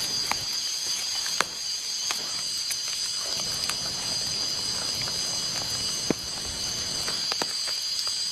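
A steady high-pitched insect chorus, several held tones at once, with sharp clicks and snaps breaking in now and then.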